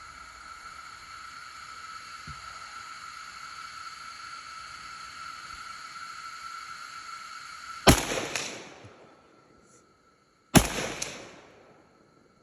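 Two gunshots from a firearm, about two and a half seconds apart, each ringing off in a short echo. Before the first shot a steady high-pitched hum runs in the background.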